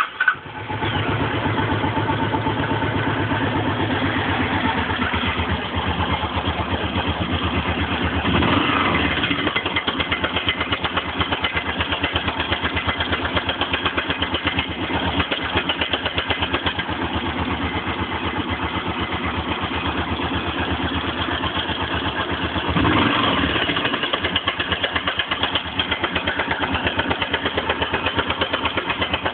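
Suzuki DR 750's big single-cylinder four-stroke engine catching and then idling cold, with two brief throttle blips. Its rapid, even beat carries a knock from the top end that comes when the engine is cold and fades once it warms; the owner suspects piston slap or rod knock.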